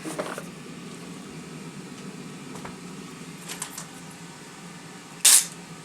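Clear packing tape ripped briefly off its roll about five seconds in, a short loud tearing sound, over a steady low room hum.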